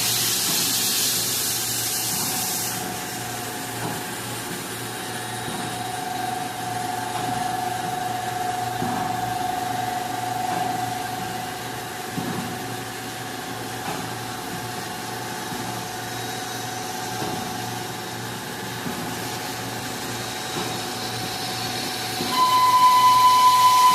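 Vertical CNC machining centre drilling metal: steady machine running noise, with a hiss in the first few seconds. A loud, steady high whine starts near the end.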